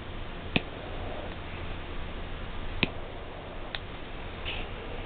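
The electronic (piezo) ignition button of a Swiss Army knife's built-in butane lighter being pressed: three sharp, separate clicks, spaced unevenly over a few seconds.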